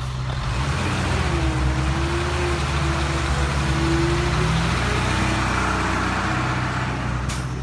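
Diesel engine of heavy earthmoving machinery running steadily, with a wavering whine through the first half.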